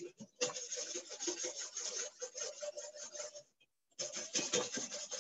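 Balloon whisk beating egg yolks in a stainless steel bowl: rapid, even scraping strokes of the wires against the metal, with a short pause about three and a half seconds in. The yolks are being whipped until they thicken, the first stage of a hollandaise.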